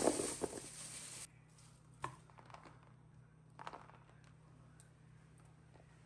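Thin plastic bag rustling and crinkling for about a second and a half, then a few light clicks and taps, over a faint steady low hum.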